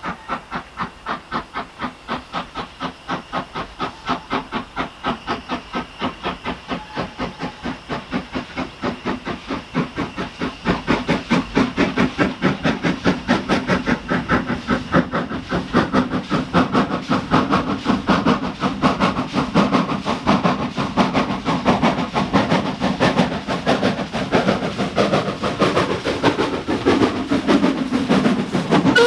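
Steam locomotive working hard, its exhaust chuffing in even beats that quicken and grow louder as it gathers speed.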